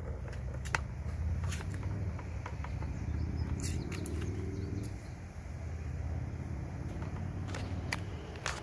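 Scattered light clicks and taps of small parts being handled while the mower's self-propel gear drive is taken apart, over a steady low hum.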